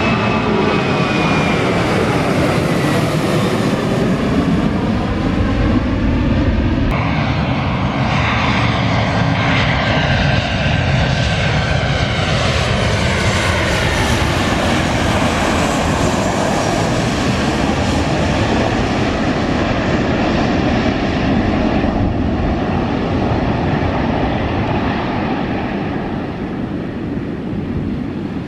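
Airliner's engines passing close by, a loud steady noise with sweeping rising and falling tones, fading slightly near the end.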